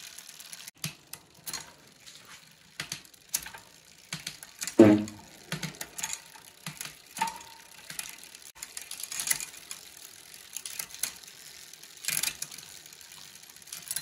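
Rear wheel of a bicycle spinning freely, its multi-speed freewheel ticking, with scattered sharp clicks and one louder thump about five seconds in.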